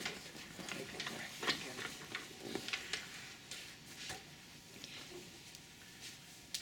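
Scattered soft clicks and rustling of movement around a treatment table: a rolling stool being pulled up and sat on, and a patient's arm and clothing being handled.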